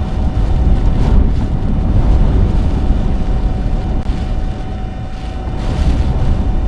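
Strong hurricane winds gusting against the car, a loud low rumble with hissing surges about a second in and again near the end.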